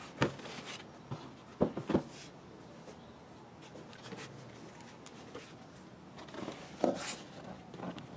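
Handling sounds on the sheet-metal plate of a dashboard airbag lid: a few sharp knocks and light rubbing as a hand presses and moves over it. There is a cluster of knocks about a second and a half in and two more near the end.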